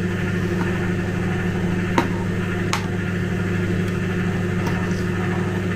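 Steady low electrical hum, as from a running kitchen appliance, with two light clinks of a metal spoon against a ceramic bowl about two seconds in.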